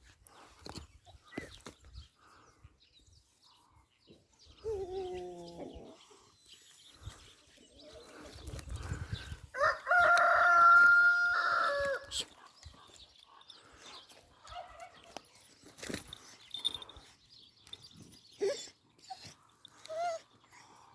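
A rooster crowing: one long crow about ten seconds in, the loudest sound here, and a shorter, lower call around five seconds in, with faint scattered knocks and rustles between.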